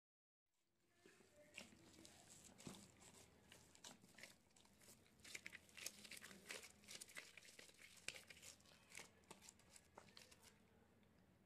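Thin disposable plastic gloves crinkling and soft egg-and-flour dough squishing as hands knead it in a glass bowl. A faint, dense run of small crackles starts about half a second in and thins out near the end.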